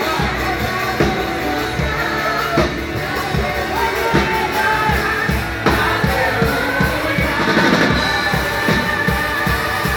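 Live worship band playing with singing: drum kit keeping a steady beat under sung melody lines.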